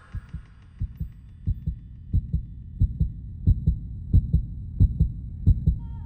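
Soundtrack pulse of low double thumps like a heartbeat, about ninety a minute, growing louder, with a faint high tick on each beat.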